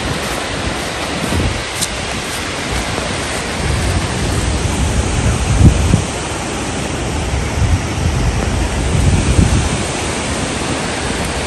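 Steady rushing of a large waterfall and the river below it, with wind buffeting the microphone in low gusts, heaviest from about four to ten seconds in.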